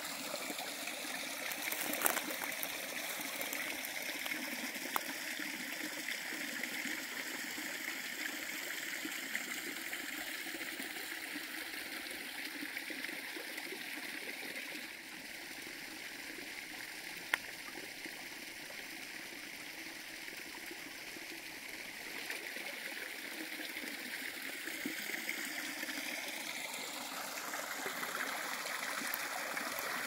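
Small waterfall of water spilling from stone culvert pipes over rocks into a shallow pool: a steady trickling and splashing. It is a little softer for a stretch in the middle, with a few faint clicks.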